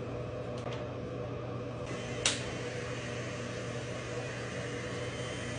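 L'ange Le Duo airflow styler running, its built-in fan giving a steady hum and airy hiss, with a single sharp click about two seconds in.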